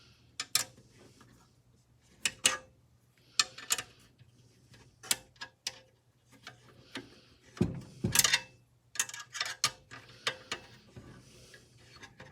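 Sharp metallic clicks and ticks at irregular intervals, often in pairs, from a hand tool turning a long screw out of a miter saw's metal housing.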